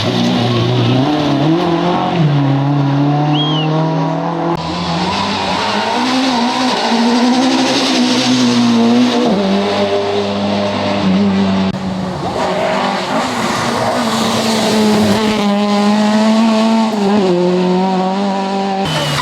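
Rally car engines running hard at high revs, the engine note holding and then jumping up or down several times as the cars change gear, over a hiss of tyre and road noise.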